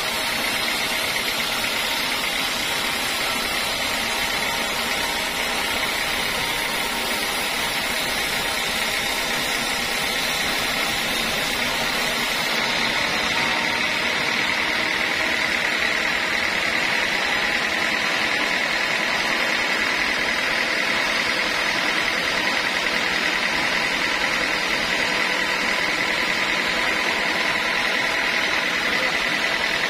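Sawmill band saw running steadily with a constant whine, its blade cutting through a teak log. The high hiss drops away about twelve seconds in as the cut finishes and the blade runs on.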